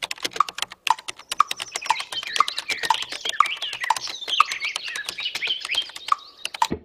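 Rapid computer keyboard typing, with a clock ticking about twice a second and high wavering chirps over it.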